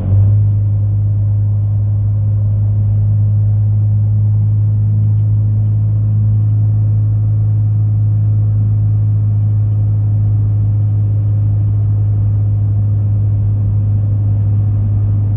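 Steady low drone of a car heard from inside the cabin while driving, the engine and tyres on the road making an even hum with no change in pitch.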